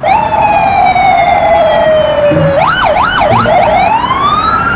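Police siren: a long, slowly falling wail that breaks into a few quick up-and-down yelps about three seconds in, then sweeps upward again.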